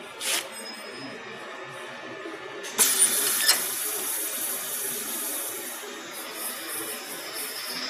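Drilling spindle of a gantry CNC plasma cutting machine working a steel plate. There is a short burst of noise near the start. About three seconds in come a sharp clunk and a couple of clicks, and then a steady high-pitched running noise as the bit drills.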